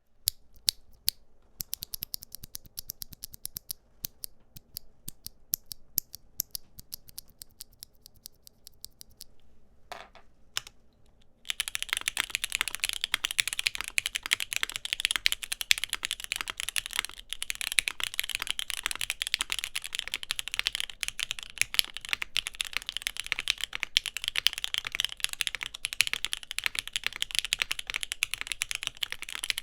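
Mechanical keyboard fitted with Gateron Khonsu full-POM switches being typed on. For the first nine seconds there are separate, spaced keystrokes. From about eleven seconds it becomes fast, continuous and louder typing.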